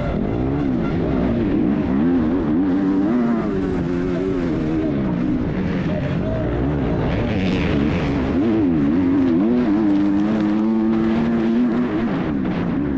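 A 250cc four-stroke MX2 motocross bike's engine at race pace, revving up and dropping back again and again as the throttle is worked and gears change over ruts and jumps. The pitch holds steadier for a moment about ten to eleven seconds in, then falls away.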